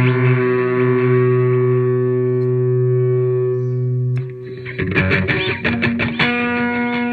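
Electric guitar played through a Boss distortion pedal and a Boss DD-3 digital delay set to its longest delay time. A distorted note is held for about four seconds and cuts off, then a run of quick picked notes and a new held note follow.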